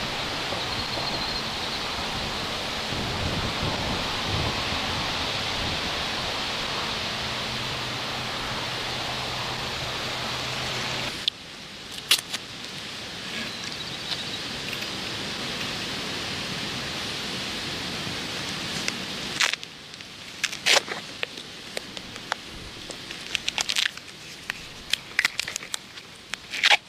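A steady outdoor hiss for about the first eleven seconds. It cuts off suddenly and gives way to quieter handling noises: scattered clicks, then a run of crackling and clicking as duct tape is pulled off the roll and wrapped around a spring-wrapped cable.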